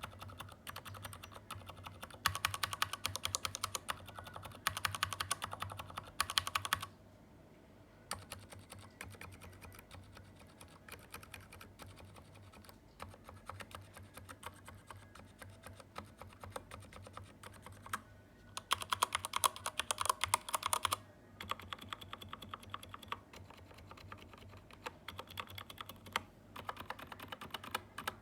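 Fast typing on a Keychron K8 mechanical keyboard, comparing switch types: some runs are loud and clacky, and others are muted, typical of silent switches. The loudest runs come a couple of seconds in and again about two-thirds of the way through.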